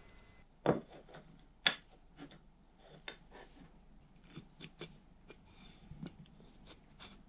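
Two sharp knocks about a second apart near the start, then a scatter of light clicks and taps from the drill guide's plastic base and metal bolt being handled.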